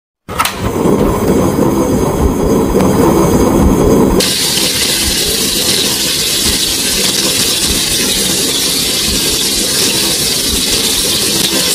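A low rushing rumble starts suddenly and runs for about four seconds, then cuts abruptly to a steady sizzling hiss of skewered food grilling.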